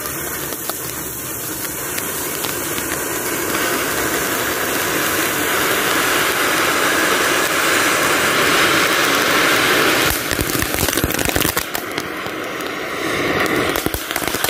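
Three small fountain fireworks spraying sparks with a loud, steady hiss that builds for about ten seconds, then breaks into sputtering crackles as they burn down.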